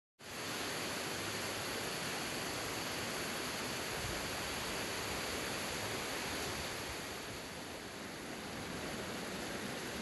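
Tall waterfall's falling water making a steady, even rush, softening slightly about eight seconds in.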